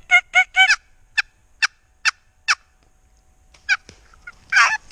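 Wild turkey yelping: four quick yelps, then slower single yelps about half a second apart, a pause, and a longer, raspier call near the end.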